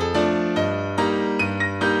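Piano music accompanying a silent film, with chords struck anew about every half second.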